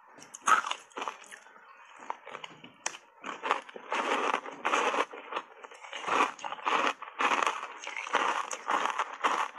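Close-miked crunching of ice chunks being bitten and chewed, a few sharp crunches at first, then steady crunching from about three seconds in at around two crunches a second.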